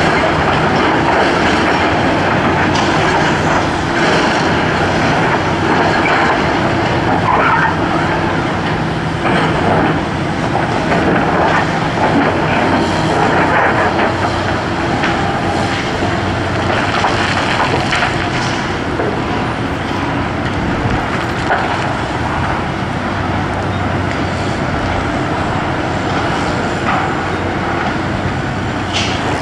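Diesel engine of a tracked rotary piling rig running steadily under load, with a few short metallic clanks from the drill stem and casing.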